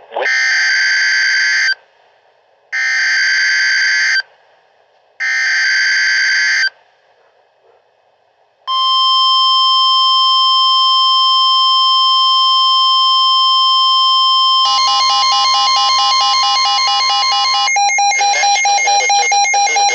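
Emergency Alert System header: three screeching bursts of SAME digital data tones about a second apart, then a steady weather-radio alert tone about nine seconds in. Around fifteen seconds in it changes to a harsher two-tone attention signal, which pulses rapidly from about eighteen seconds on.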